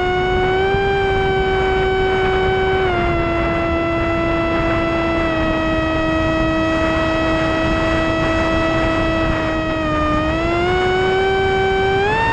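Electric motor and propeller of an S800 FPV model aircraft whining in flight, heard from its onboard camera over a steady rush of air. The pitch steps down about three seconds in, dips again near the end and then climbs back up.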